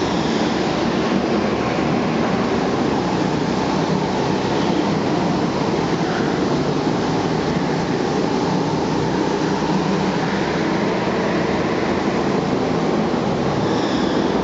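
Small petrol go-kart engines running steadily as karts lap an indoor track, a loud continuous drone of engine and tyre noise.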